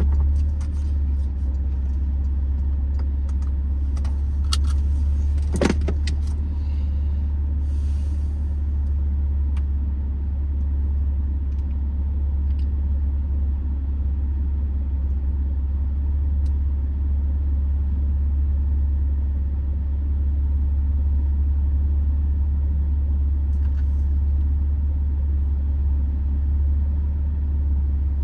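A vehicle driving at a steady pace, its steady low rumble unchanging in pitch, with a few rattles and clicks about four to six seconds in.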